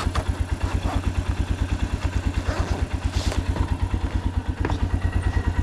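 ATV engine idling steadily with a fast, even beat, and a few short knocks and rustles over it.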